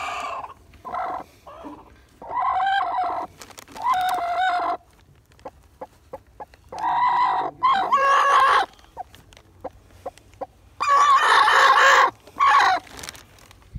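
Chickens calling: six drawn-out, pitched squawks of about a second each, with short gaps between them. The longest comes near the end, in two parts.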